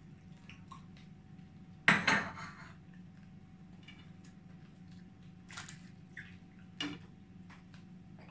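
Dishes and utensils clattering on a tabletop: one loud clatter about two seconds in, then a few lighter clinks and taps.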